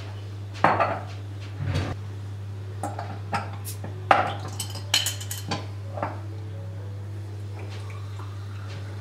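Sharp clinks and knocks of glass and metal as a glass bottle of mineral water is set down and a metal bottle opener pries its cap off, the loudest click about four seconds in. The last few seconds are quieter.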